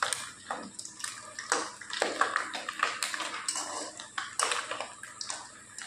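Small fish sizzling and crackling as they fry in hot oil in a kadhai, nearly done, with a metal spatula scraping and clinking irregularly against the pan as they are turned.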